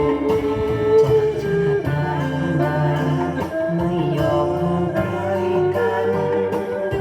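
Homemade Thai bowed fiddle (saw) with a metal body and a cat-skin face, playing a gliding, song-like melody over a steady lower accompaniment.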